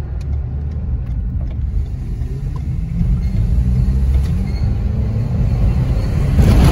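Inside the cabin of a Ford Escape being driven, the engine and road noise make a steady low rumble. A brief louder rush comes near the end.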